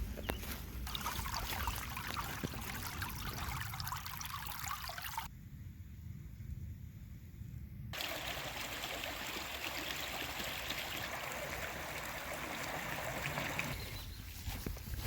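Small stream trickling steadily. It drops away abruptly about five seconds in, returns about three seconds later, and fades out shortly before the end.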